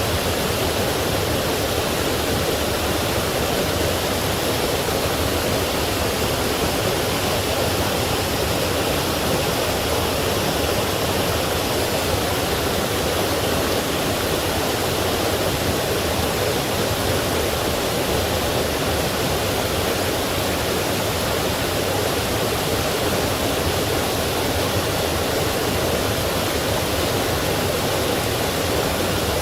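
Forest stream rushing over rocks and small falls: a steady, even wash of flowing water.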